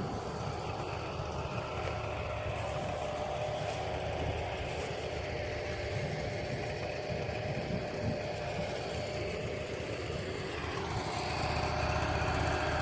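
Engine idling steadily, a little louder from about eleven seconds in.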